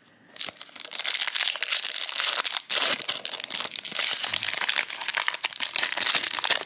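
Foil trading-card pack wrapper crinkling in a gloved hand as it is handled and gripped for opening. The crinkling starts about half a second in and goes on as a dense, continuous crackle.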